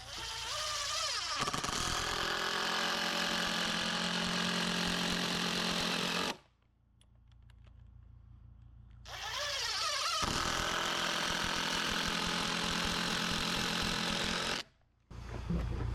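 Handheld power drill or driver running in two long runs of about six and five seconds, spinning up at the start of each, driving a fastener into the framing.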